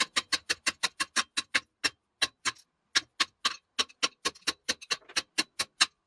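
Quick light hammer taps on a stripped square-head chain-bar stud, knocking it out of the chainsaw, about five or six taps a second with a couple of short pauses.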